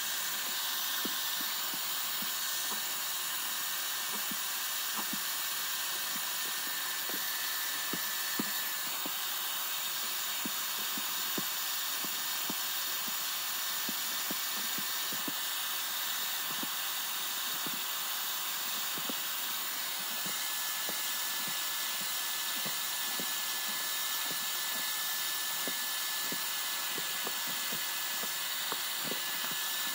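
Portable carpet extractor running steadily: an even, high hiss from its suction motor as the hand tool sprays and pulls water through the carpet, with a thin steady whine and faint irregular ticks.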